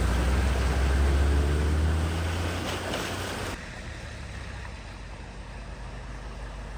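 A motor vehicle's engine rumbling low with a wash of water noise. About three and a half seconds in, the sound drops suddenly to a quieter, steady background with a faint engine hum.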